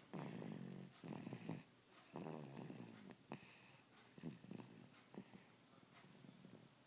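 Faint snoring: rhythmic breaths, each with a rough pitched rattle, about one a second at first and weaker and more uneven after about three seconds.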